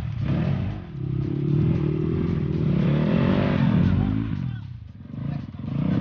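Dirt bike engine revving up and down under load, with a brief drop in revs about five seconds in.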